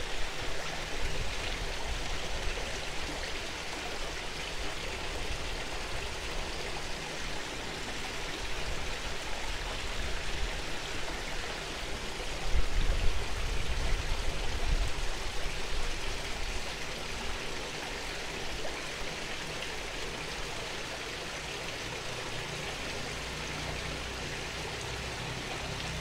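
Steady rush of water from a small garden waterfall spilling into a koi pond. About twelve seconds in, a low rumble rises over it for a few seconds.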